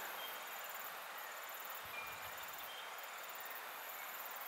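Insects chirping in rows of rapid high-pitched pulses, over a steady hiss of outdoor background noise.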